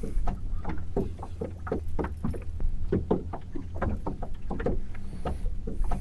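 Small waves lapping and slapping against the hull of a fishing boat in short, irregular splashes, over a steady low rumble of wind on the microphone.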